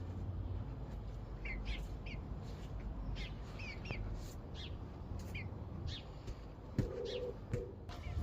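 Birds chirping: short, high, falling calls repeated every second or so over a low steady rumble, with a brief lower-pitched call about seven seconds in.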